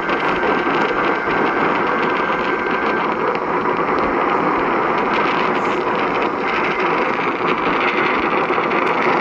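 Radio receiver static: a steady, loud hiss of noise, with a faint thin tone in it that stops about three seconds in.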